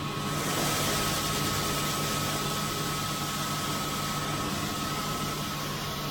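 Harvest machinery engine running steadily, a low drone with a steady high whine over it. A loud hiss comes in about a quarter second in and holds.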